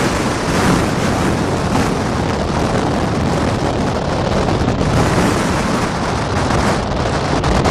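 Strong gusting wind from a thunderstorm microburst buffeting the microphone: a loud, steady rushing noise.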